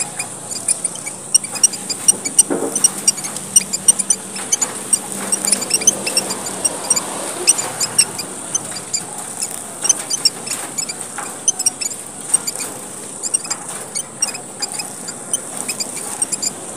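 A group of small finches known as emprit merah papua chattering busily. Many rapid, short, high peeps and squeaks overlap, over a steady hiss.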